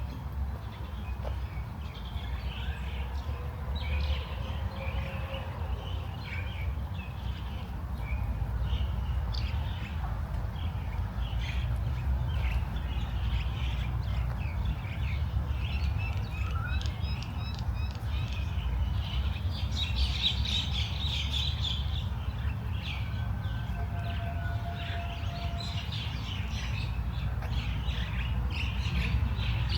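Small songbirds chirping and calling on and off, with a busier patch of song about two-thirds of the way through, over a steady low rumble.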